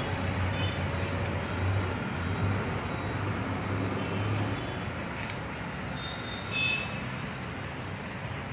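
Road traffic going by, with a vehicle engine's low hum that drops away about four and a half seconds in. A brief high tone sounds about six and a half seconds in.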